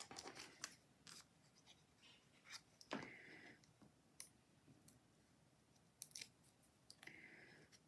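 Faint handling of cardstock and foam tape: scattered small clicks and ticks, with two brief scratchy rubs a few seconds apart, as fingers peel the tape's backing and press the tape onto a paper leaf.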